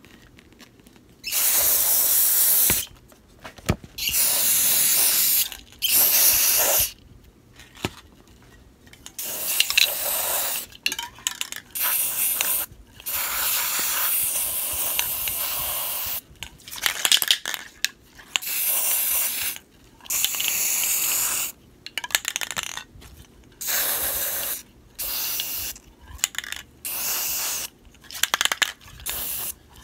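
Aerosol can of Rust-Oleum 2X metallic gold spray paint spraying in a dozen or more short hissing bursts, each one to three seconds long, with brief pauses between.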